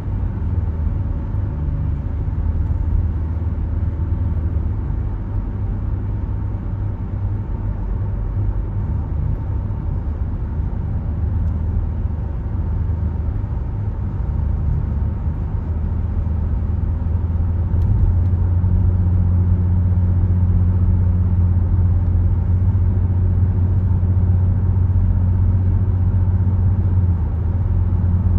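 A car driving at road speed: a steady low rumble of tyres and engine. It grows a little louder about two-thirds of the way through.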